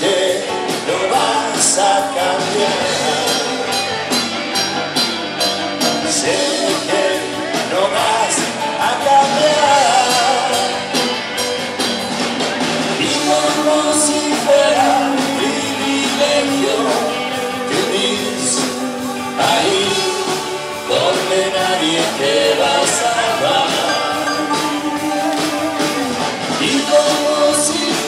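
Live rock band playing, with drums and cymbals under a male lead singer singing into a microphone.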